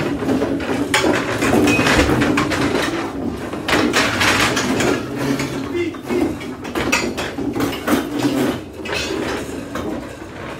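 Many plastic school chairs and desks being dragged and shifted at once, a continuous scraping on the floor broken by frequent knocks and bangs.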